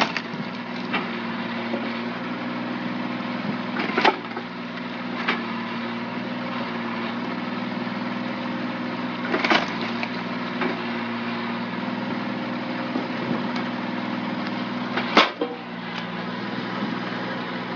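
An engine runs steadily, driving a hydraulic log splitter. Three sharp cracks come as the wedge pushes down and splits a round of firewood.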